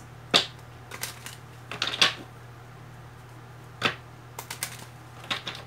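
Tarot cards being handled on a table: a series of sharp clicks and taps as the deck is picked up, knocked and set down, some single and some in quick little clusters.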